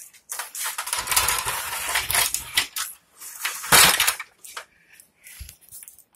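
Hand tools being gathered up and handled: metal clattering and scraping for a couple of seconds, then one louder clunk near the middle, followed by a few small knocks.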